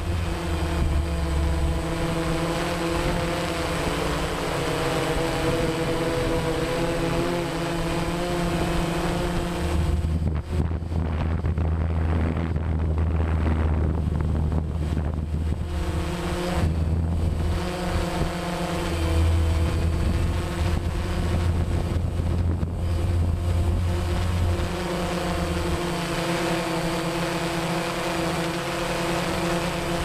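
Camera drone's motors and propellers humming steadily, the pitch shifting a few times as it manoeuvres, with wind noise on the microphone.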